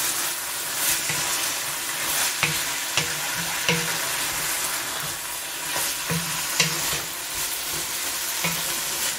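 Sauce sizzling in an enamel pot while it is stirred with a wooden spoon, with a steady hiss throughout. The spoon knocks against the pot's side several times.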